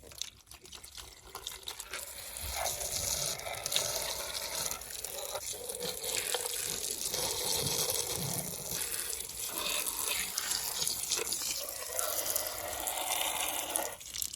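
Water running and splashing, starting about two seconds in and stopping just before the end, with small clicks and knocks through it.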